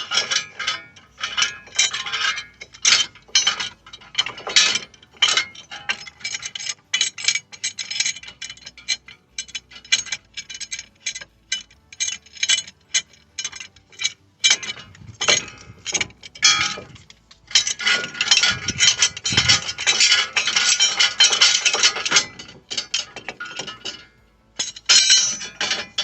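Irregular metallic clicks, clinks and knocks of brake hardware and tools being handled, with a longer stretch of dense rattling and scraping about 18 seconds in.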